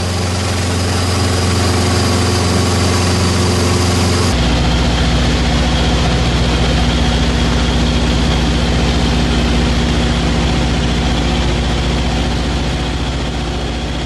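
Cessna 150's four-cylinder Continental O-200 engine and propeller droning steadily in cruise, heard from inside the cabin. About four seconds in, the drone shifts abruptly to a different, deeper tone.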